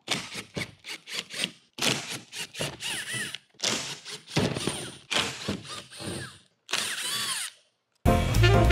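A power drill running in several short bursts, its whine rising and falling, as it backs screws out of a big shipping crate. Jazz music with saxophone comes in near the end.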